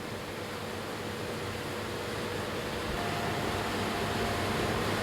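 New Holland CR9.90 combine harvester running steadily while cutting wheat, a continuous machine drone with a faint steady hum, growing gradually louder.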